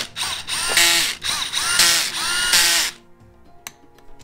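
Cordless drill/driver running in the clutch-cover bolts on a 1998 Kawasaki KX250 two-stroke engine, in about five short bursts that each spin up with a rising whine and stop. After that it is quieter, with a sharp click near the end.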